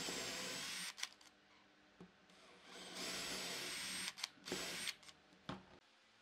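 Cordless drill boring pilot holes into a softwood board: two runs of the motor's whine mixed with the bit cutting wood, the first stopping about a second in and the second lasting about two seconds, each followed by a few sharp knocks as the drill is handled and the bit withdrawn.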